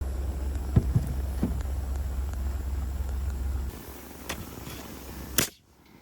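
Sharp knocks of nailing into lumber, a few in the first second and a half, one more about four seconds in and the loudest near the end, over a steady low rumble that stops partway through.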